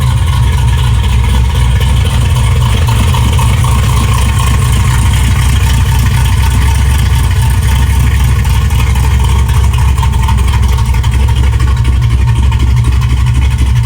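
Car engine running loud and steady with a heavy, deep rumble, close to the microphone.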